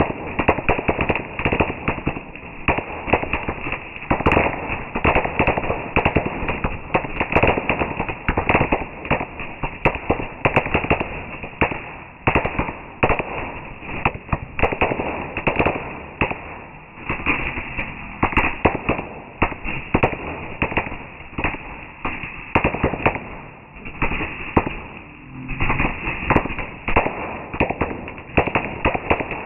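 Fireworks going off in a dense, unbroken barrage: sharp crackling bangs, several a second, rising and falling in loudness.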